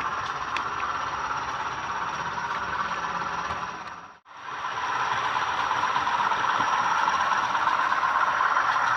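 Sound-fitted Bachmann Class 20 model diesel locomotive running, its DCC sound decoder playing the Class 20 diesel engine through a small onboard speaker. The sound fades out briefly about four seconds in and comes back a little louder.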